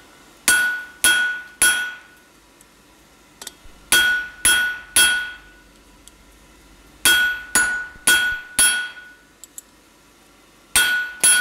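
Blacksmith's hammer striking hot steel on an anvil, driving a 6 mm round bar lengthwise into a tong jaw to form a groove. The blows come in quick runs of three or four, about two a second, with pauses between, and each one rings out sharply.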